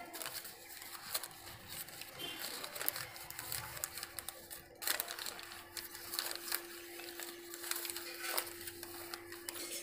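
Crumpled sheets of ruled notebook paper crinkling and rustling in the hands as they are unwrapped from around eggs, with irregular sharper crackles. A faint steady hum runs underneath and gets stronger in the second half.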